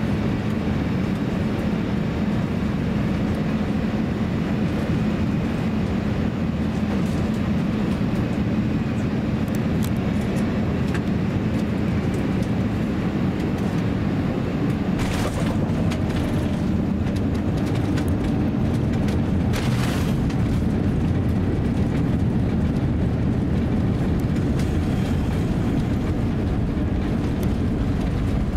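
Airliner cabin noise during the landing of an Airbus A350-900 with Rolls-Royce Trent XWB engines: a steady low rumble of engines and airflow. Two short hisses come about halfway through, around touchdown on the runway, and the rumble grows slightly louder afterwards.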